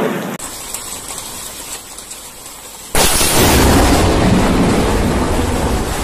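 Steady rain, then about three seconds in a sudden loud crack of lightning striking a nearby pine tree, running straight on into loud rumbling thunder.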